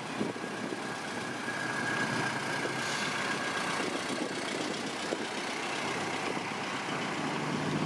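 Classic cars driving slowly past one after another, their engines running at low speed over a steady haze of road noise. Near the end a deeper engine hum grows louder as an old pickup truck comes by.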